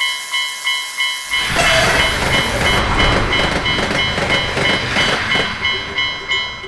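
Japanese level-crossing alarm sounding its repeated "kan-kan" tone, about three strikes a second. From about a second in a train passes through the crossing with a loud rushing noise that fades near the end while the alarm keeps ringing.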